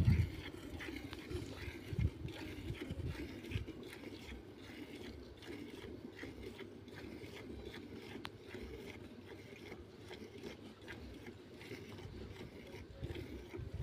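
Cow being milked by hand: milk squirting from the teats into a steel bucket in a quick, regular rhythm of short squirts. A few dull thumps in the first few seconds.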